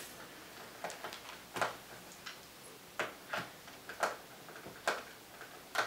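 Small Phillips screwdriver working a stubborn screw out of a laptop's plastic bottom case: a string of sharp, irregular clicks, roughly one or two a second.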